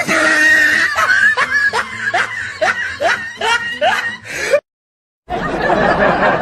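Comic laughing sound effect: a wheezy snicker made of a quick string of short rising squeaks, about two or three a second, that cuts off abruptly about four and a half seconds in. After a brief dead gap, a noisy murmur begins near the end.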